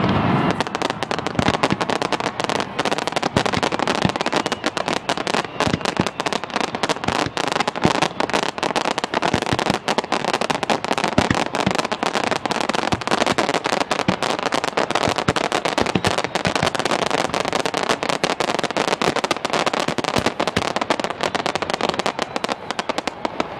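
Fireworks display going off overhead: a dense, continuous crackle of many sharp bangs and pops, too close together to count.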